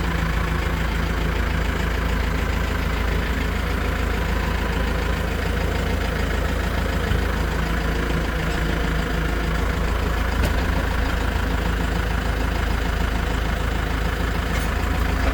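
Tractor engine idling steadily with the air conditioning running, just after its refrigerant has been recharged.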